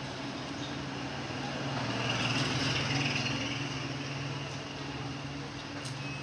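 A motor vehicle's engine running steadily, growing louder about two to three seconds in and then fading again, as if passing by.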